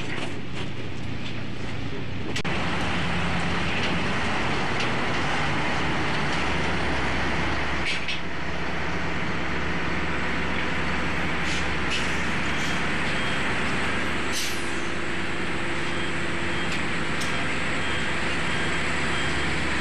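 A steady engine noise with a constant hiss over it and a few faint clicks, not changing much throughout.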